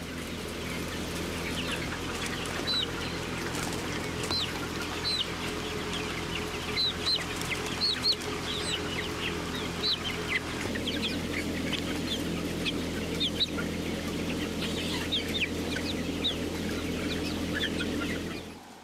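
Young broiler chickens in a crowded shed calling with many short, high peeps, over a steady low mechanical hum.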